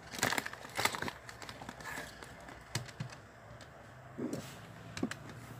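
Irregular light clicks and taps of fingers pressing calculator buttons.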